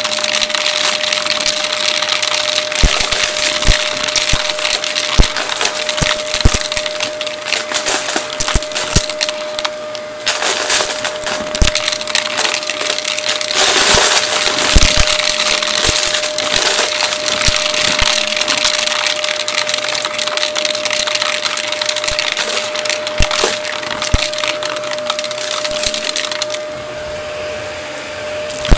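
Shark upright vacuum cleaner running, with a steady motor hum and one constant tone. Many irregular sharp clicks and rattles come as small bits of debris are sucked up. Near the end the hissing suction noise drops off and the sound becomes duller.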